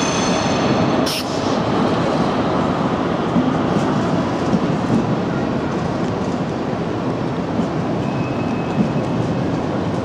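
Intercity passenger coaches rolling slowly past on departure, a steady rumble of wheels on rail. A brief high squeal fades at the start, and there is one short, sharp hiss about a second in.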